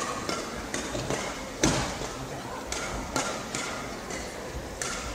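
Reverberant badminton-hall ambience between rallies: scattered sharp knocks and taps, the loudest about one and a half seconds in, over a faint background murmur.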